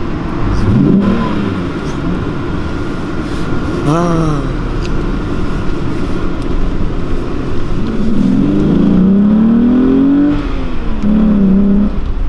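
A Volkswagen 2.8 VR6 engine (174 PS) in a Golf 4 Cabrio accelerating hard through the gears. The revs rise near the start and rise and fall briefly about four seconds in. A long climb from about eight seconds ends in a sudden drop at the shift about two seconds later, then the engine runs on at a steadier pitch.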